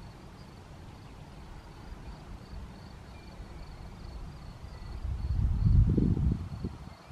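Wind buffeting the microphone in uneven gusts, with the strongest gust a little after five seconds in. Behind it a cricket in the meadow chirps steadily, about twice a second.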